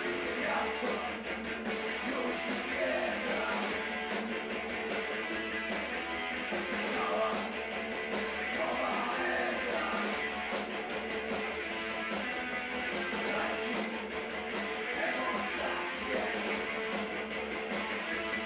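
Punk rock band playing live: electric guitar, bass guitar and drums.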